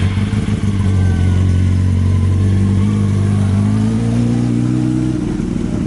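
Sport motorcycle engine running steadily, then rising slightly in pitch about three seconds in as the bike pulls away, growing a little fainter near the end.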